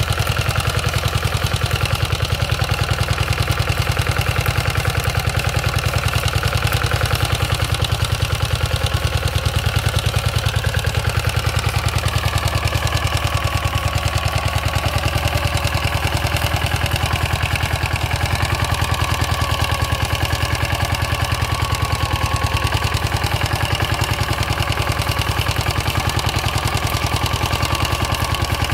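The engine of a rotary tiller running steadily, with an even, rapid firing beat, while it tills plant residues into the soil.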